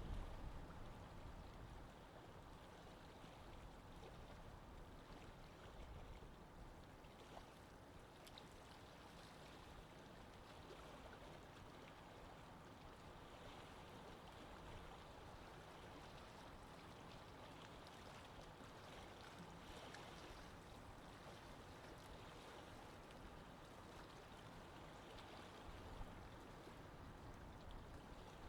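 Faint, steady wash of water, an even hiss with no distinct waves or strokes.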